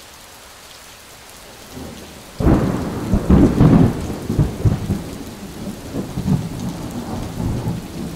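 Steady rain with a loud roll of thunder that breaks in about two and a half seconds in, rumbling on in swells and slowly dying away.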